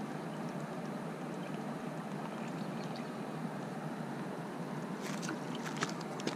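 Steady outdoor background noise on the camera microphone at a pond's edge, with a few short sharp ticks about five seconds in.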